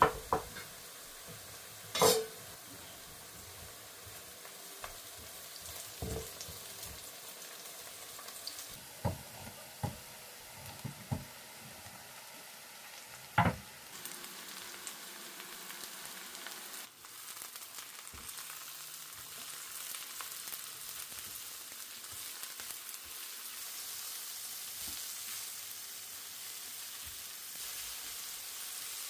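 Food sizzling in hot oil in a frying pan, with several sharp knocks of a utensil against the pan in the first half. About halfway through the sizzle turns louder and steadier.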